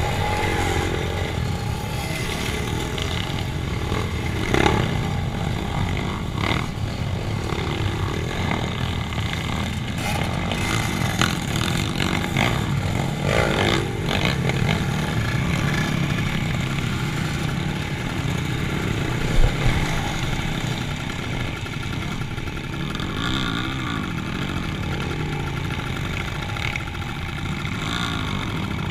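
Motor vehicle engines running steadily, with the pitch rising and falling now and then and a few knocks, one sharper than the rest about two-thirds of the way in.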